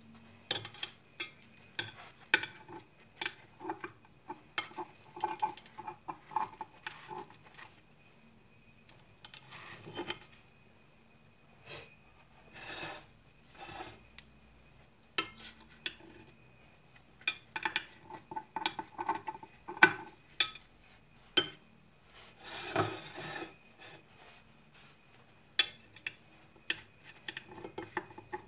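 Kitchen scissors snipping through a thin pizza while metal tongs click and scrape against a ceramic plate. The snips and clicks come irregularly, in short crackly clusters with brief pauses between them.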